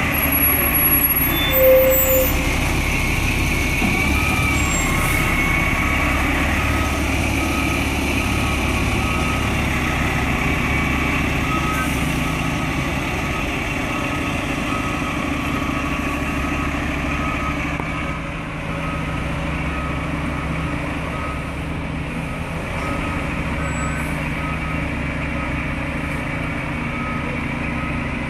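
Fire truck's diesel engine idling low while its reverse alarm beeps repeatedly as it backs into the station bay. A brief louder tone sounds about two seconds in.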